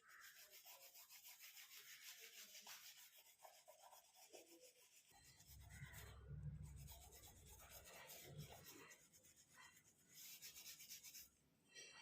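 Faint, quick rubbing strokes on a shoe as it is cleaned, with dull handling bumps partway through.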